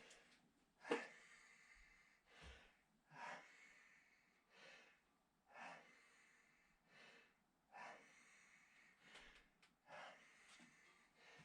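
A man breathing hard and fast from the effort of lifting a heavy engine, one short, noisy breath about every second.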